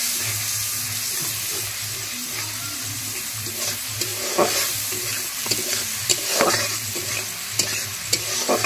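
Spice paste sizzling in a kadai while a metal spatula stirs it, with a steady frying hiss. From about halfway through come several sharp scrapes of the spatula against the pan.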